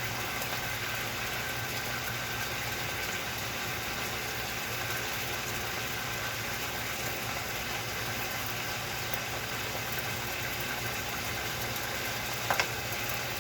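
Chicken and pineapple frying in a pan: a steady sizzle over a low hum, with two sharp knocks near the end.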